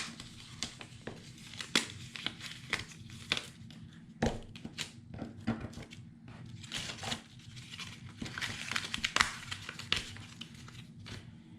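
Die-cut paper and cardstock pieces being handled and sorted: irregular rustling and crinkling of paper with light taps and slides on the table.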